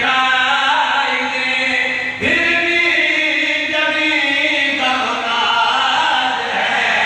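Men's voices chanting a devotional Urdu qasida together into a microphone, in long held notes whose pitch shifts every couple of seconds.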